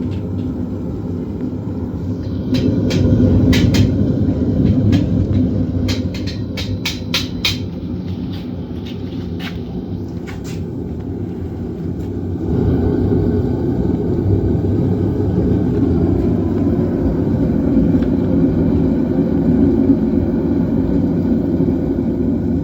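Metal-melting furnace burner running with a steady low rumble while brass melts, getting louder about two seconds in and again past halfway. Sharp metal clinks and knocks come in a cluster in the first half.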